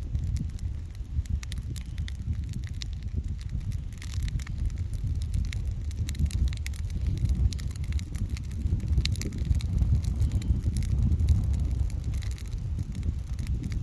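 A fire burning in a pile of dry leaves, crackling with many sharp irregular pops over a steady low rumble.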